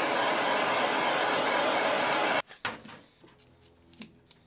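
Handheld gas torch burning with a steady hiss that cuts off suddenly about two and a half seconds in, followed by a few light clicks.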